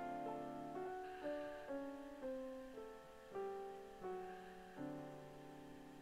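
Soft background piano music: a slow melody of single notes, each struck and then fading.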